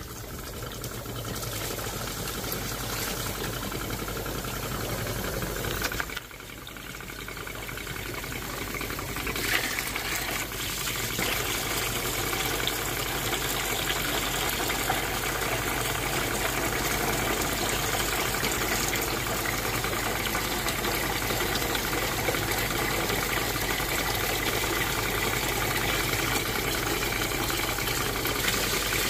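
Water rushing steadily out of a Tempest koi pond filter being flushed clean with its bypass valve open. The rush drops sharply about six seconds in, then builds back up and runs on steadily.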